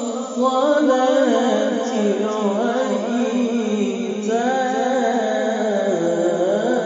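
A man's solo voice chanting Quranic recitation in the melodic mujawwad style, holding and bending long ornamented notes. It takes a brief breath at the start and resumes about half a second in.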